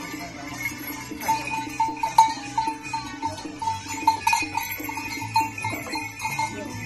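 Harness bells on a cart horse jingling again and again, a few strikes a second, as the horse shifts and shakes in its harness.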